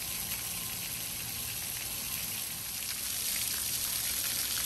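Splash-pad water jets and a spout spraying and spattering onto wet concrete, a steady hiss of falling water.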